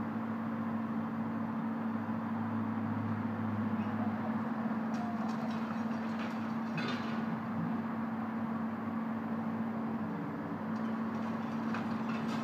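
Diesel engine of a demolition excavator running steadily at a distance, a constant hum, with faint clatter of demolition debris twice around the middle.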